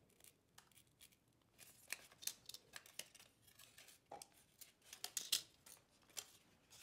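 A small paper cup being cut in half with an X-Acto knife and its cut halves handled: faint, scattered crisp crackles and clicks of thin paperboard.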